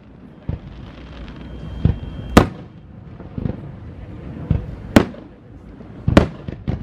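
Aerial firework shells bursting: a string of sharp bangs at irregular intervals, about eight in all, the loudest about two and a half, five and six seconds in.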